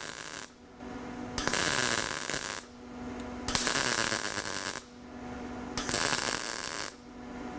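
MIG welding arc crackling as a lap-weld bead is pushed along sheet metal, in three bursts of about a second each with roughly a second's pause between them, after an earlier burst dies away about half a second in.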